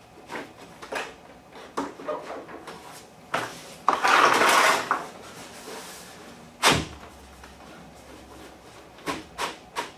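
Handling noise as a drop-and-lock laminate plank is slid into place along its tongue-and-groove joint over dimpled plastic underlayment: scattered knocks and clicks, a loud scrape about four seconds in, and a sharp knock a little before seven seconds.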